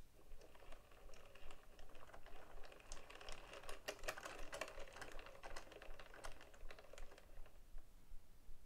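The clockwork springs of two small wooden music boxes being wound by their keys, a dense ratcheting clicking. It thickens in the middle and thins out near the end.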